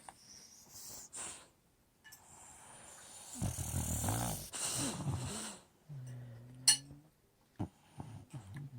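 Old English Bulldog snoring in its sleep: one long, rattling snore through the middle, then a shorter snore with a steadier pitch, and a few small snuffles near the end.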